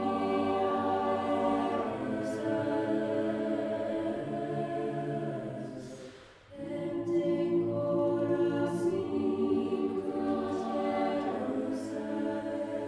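Mixed choir singing slow, sustained chords a cappella. A phrase fades away about six seconds in, and after a short pause the voices come back in together on a new phrase.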